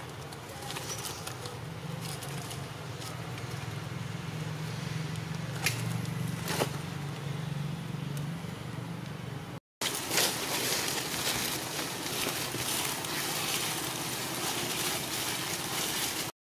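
A low steady hum with a couple of sharp clicks. After a short break, dry leaf litter crackles and rustles as macaques forage through it.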